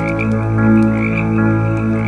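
Campfire crackling in scattered sharp pops over a loud, steady, low droning hum of several held pitches.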